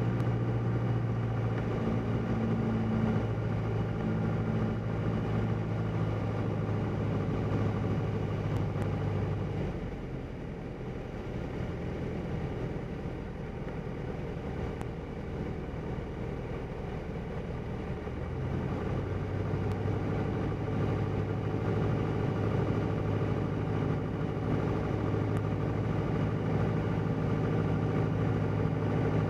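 Single-engine light aircraft's engine and propeller droning steadily, heard from inside the cockpit on a low approach. The engine note drops and quietens about a third of the way in, then rises back up about two-thirds in.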